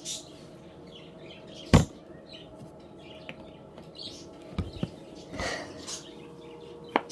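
A few separate sharp knocks and a short scrape from slime-making things, such as a glue bottle and bowl, being handled and set down on a table.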